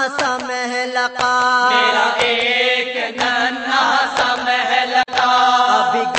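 A voice chanting an Urdu marasiya (a Moharram elegy) in a slow, wavering melodic line over a steady low drone. A sharp beat falls about once a second.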